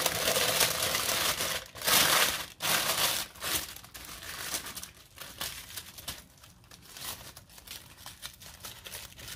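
Paper takeaway wrapping rustling and crinkling as a burrito is unwrapped, loudest in the first few seconds, followed by quieter crinkling of the aluminium foil being peeled back.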